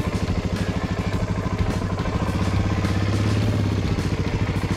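Suzuki DR-Z400's single-cylinder four-stroke engine running steadily at low revs with a rapid, even thump.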